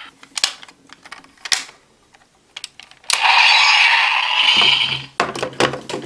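Plastic clicks and snaps as toy buckles are handled and set in place. About three seconds in, a loud electronic sound effect plays from the Kamen Rider Geats DX toy's small speaker. It runs into a humming standby loop with more clicks.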